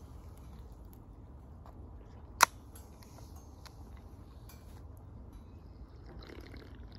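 Aluminium Pepsi can opened with a single sharp pop of the ring-pull about two and a half seconds in, followed by a couple of seconds of faint fizzing with small ticks. Near the end come a few soft drinking sounds as he sips from the can.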